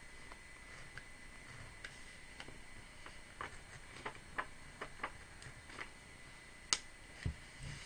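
Craft knife blade cutting through paper: a run of faint, irregular small clicks as the tip pierces and drags through the sheet, bunching up in the middle, with one sharper click and then a dull knock near the end.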